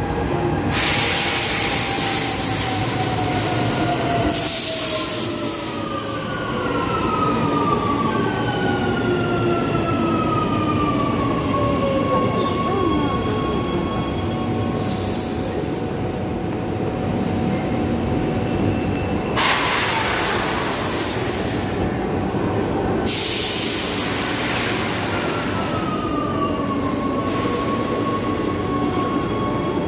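Rome Metro train arriving at an underground platform over a steady rumble. Several whines fall in pitch as it slows, and loud bursts of hiss come near the start and twice in the second half.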